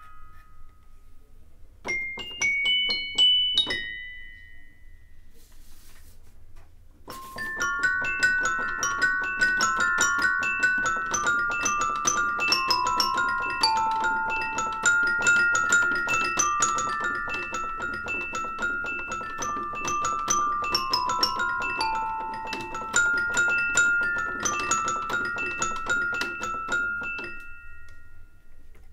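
Toy piano played, its bright, metallic, bell-like notes sounding from hammers striking metal rods. A few notes are followed by a pause, then from about seven seconds in a fast stream of repeated notes runs under a melody until it stops shortly before the end.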